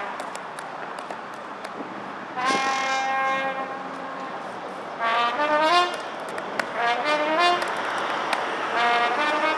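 Solo trumpet played live in the street. After about two seconds of pause comes a long held note, then short jazzy phrases whose notes climb in steps, with faint clicks scattered underneath.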